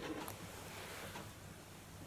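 Quiet room with a faint click or two of small plastic snap fasteners being picked up off a table into a hand, near the start.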